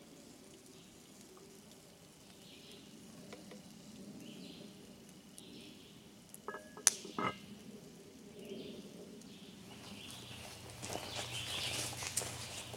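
Wood fire and birds in the background, with a short cluster of knocks about seven seconds in, the sharpest a ringing metal clink, as the cast-iron Dutch oven and its tripod gear are handled. Rustling and movement close by near the end.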